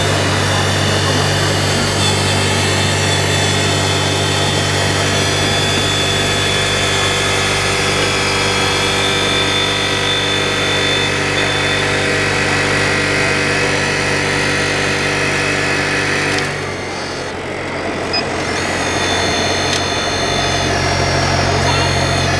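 1/14-scale RC model trucks and construction machines running: a steady engine-like drone with a higher whine over it. The drone drops away briefly about three-quarters of the way through, then picks up again near the end.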